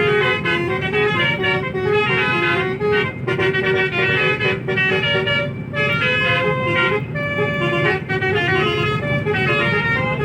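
A bus's 'telolet' musical horn, a set of multi-tone air horns, playing a continuous stepping melody of short notes, over the low rumble of the bus engine.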